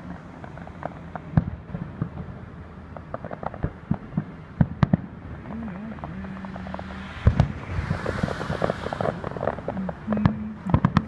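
Fireworks display: aerial shells bursting in a string of irregular sharp bangs. About seven seconds in comes a dense burst of hissing crackle.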